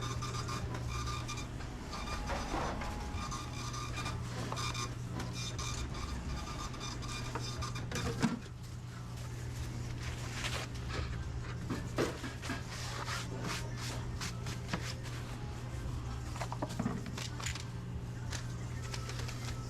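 Busy restaurant kitchen background: a steady low machine hum with scattered clatter and knocks of utensils and trays. The sharpest knocks come about eight and twelve seconds in.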